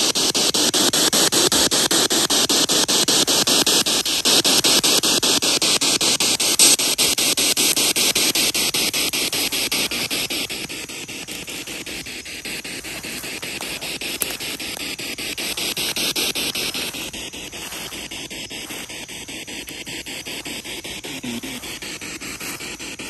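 Spirit box sweeping through radio stations: steady static hiss chopped into a fast, even stutter by the sweep. It drops in level about ten seconds in. Near the end comes a brief voice-like fragment, which the investigators caption as "81?", taking it for an answer to the age question.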